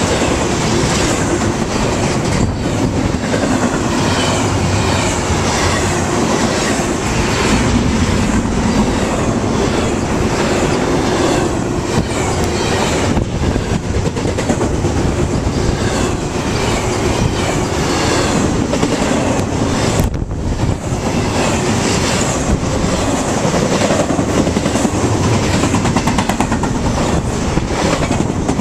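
Double-stack container train's well cars rolling past at close range: the loud, steady rolling noise of steel wheels on the rails.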